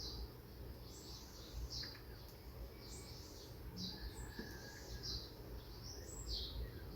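Small birds chirping, short high notes repeating about once or twice a second, over a steady low background rumble.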